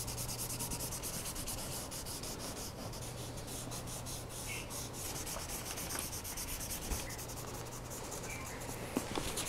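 Yellow chalk pastel stick scratching and rubbing back and forth across paper in steady strokes.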